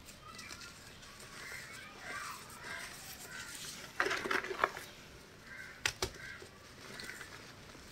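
Hands squeezing and crumbling soft chalk blocks in a bowl of chalk powder, giving short squeaky crunches, with a louder crunch about four seconds in and two sharp snaps a little before six seconds.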